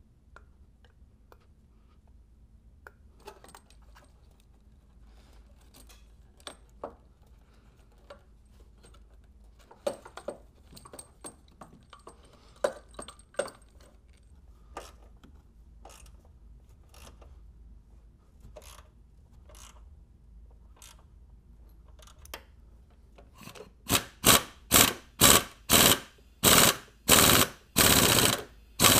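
Hand tools clicking and knocking on a Dodge 2.4 L engine during reassembly. Near the end comes a run of about a dozen loud ratcheting strokes, about two a second, the last few longer.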